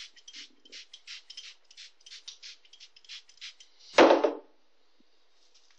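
Hand spray bottle misting dried-out pipe tobacco to rehydrate it: a rapid run of short hissing squirts, about three a second. About four seconds in there is one loud thump with a brief ringing tail.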